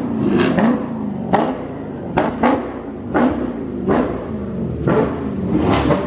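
Hip-hop background beat, heavy drum hits with deep bass notes about once a second, over the low rumble of a car engine.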